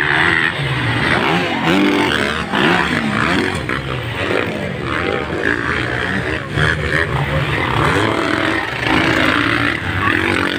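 Several motocross dirt bikes racing, their engines revving up and falling away again and again as the riders work the throttle and gears.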